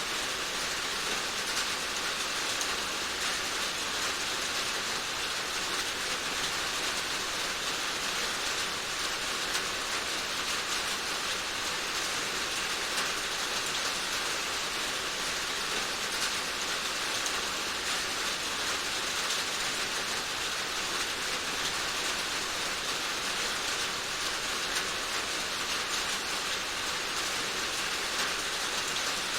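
Steady rain falling, an even hiss of many drops with faint pattering throughout.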